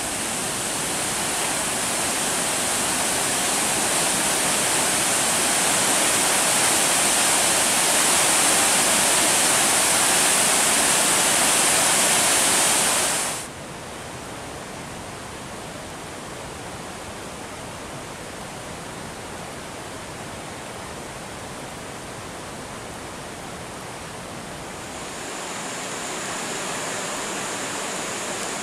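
Floodwater in a creek swollen by heavy rain, rushing over and between large granite boulders in a loud, steady rush. About halfway through it cuts suddenly to a much quieter, more distant rush of water, which grows a little louder and hissier near the end.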